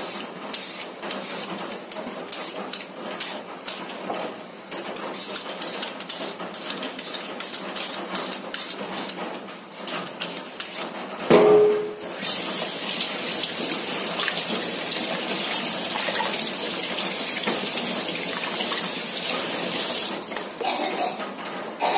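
A hand peeler scraping the skin off a papaya over a stainless steel sink in many short strokes. About eleven seconds in comes one sharp knock with a brief ring. Then a kitchen tap runs steadily onto the peeled papaya in the sink for about eight seconds, and a few scraping strokes follow near the end.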